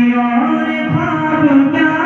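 A man singing a naat, an Islamic devotional hymn, solo into a microphone. He draws out long held notes that slide up and waver in pitch.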